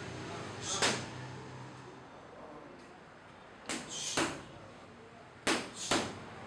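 Boxing gloves smacking into focus mitts in sharp hits: one about a second in, then two quick pairs of punches in the second half.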